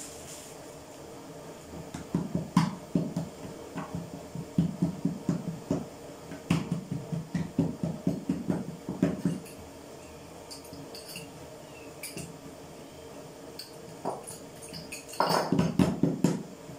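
Hands patting and pressing a ball of roqaq dough flat on a floured wooden board: a run of soft, quick thumps several times a second, with a few louder, sharper knocks near the end.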